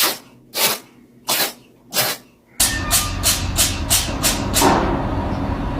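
A cat sneezing over and over in short, sharp bursts, at first about every two-thirds of a second, then faster, about three a second, over a steady low rumble from about halfway in.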